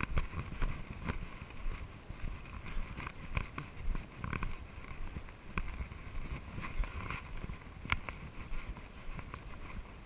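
Footsteps moving along a dirt trail strewn with dry leaves: a steady run of uneven crunches and knocks.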